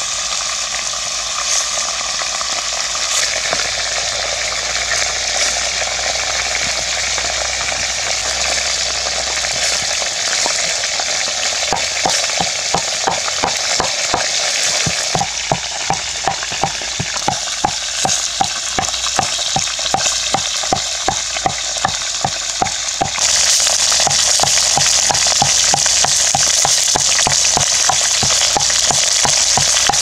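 Duck frying in a metal pot over a wood fire, a steady sizzle throughout. In the middle a regular knock comes about twice a second for some ten seconds, and about two-thirds of the way in the sizzling turns louder and brighter.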